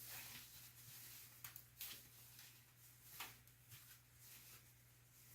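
Near silence with a faint steady hum, broken by a few faint, brief rustles of cloth as a do-rag and stocking cap are pulled on over the hair.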